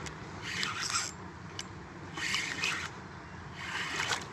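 Fishing reel whirring in three short bursts while a hooked sheepshead is fought on the line.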